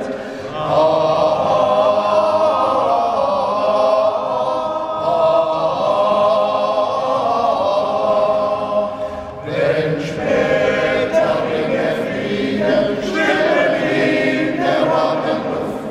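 Men's choir singing a cappella: one long held chord, then a new phrase begins about nine seconds in.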